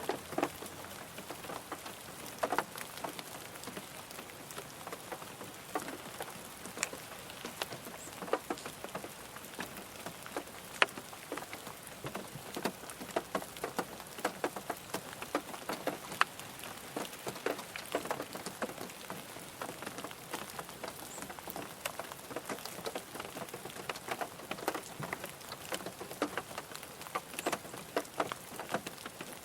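Rain falling on a car's roof and windows, heard from inside the cabin: a steady patter of irregular drops with now and then a louder single drop.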